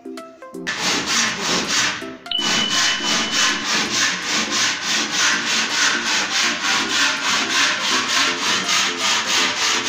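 Hand tool worked back and forth on the wood of a window frame: quick, even rasping strokes, about four a second, starting just under a second in.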